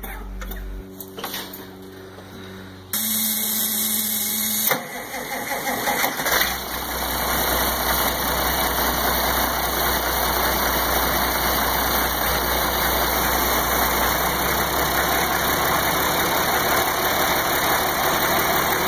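Cold start of an Oliver 880 tractor's naturally aspirated Waukesha straight-six diesel through a straight-pipe exhaust. The starter cranks for about two seconds, the engine fires and catches about five seconds in, runs unevenly for a moment, then settles into a steady idle.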